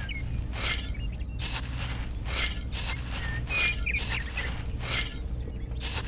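Dry uncooked rice grains rustling and trickling in short strokes, about ten in a row at roughly half-second intervals, as a miniature metal shovel scoops into a toy trolley heaped with rice. A steady low hum runs underneath.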